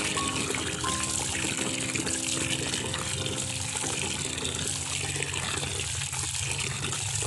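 Tap water running steadily into a partly filled plastic bucket, splashing into the water already in it.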